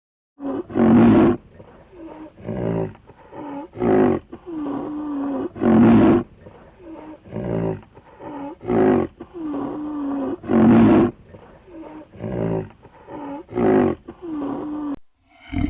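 A big cat roaring or calling in a rhythmic series: a loud call about every two to three seconds with softer, lower calls between them, stopping shortly before the end.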